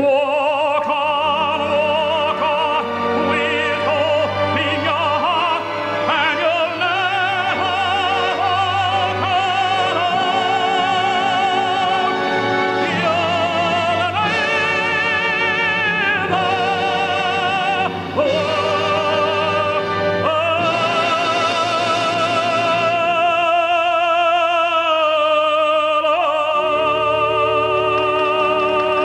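Operatic tenor voice singing held notes with wide vibrato over a full orchestra, in the closing build of a ballad.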